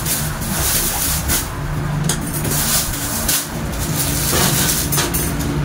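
Thin plastic shopping bags rustling and crinkling as they are handled and rummaged through, in quick irregular crackles, over a steady low hum.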